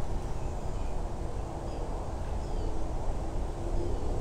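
Outdoor background: a steady low rumble with a faint hum, and a few brief faint high bird chirps.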